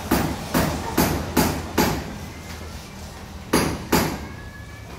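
Sharp knocks, five in quick succession about 0.4 s apart, then after a pause two more about three and a half seconds in.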